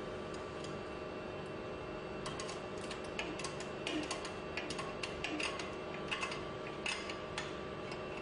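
Irregular small metallic clicks and clinks of hands working a bolt or nut at the end flange of a progressive cavity pump. They come in quick clusters from about two seconds in, over a steady background hum.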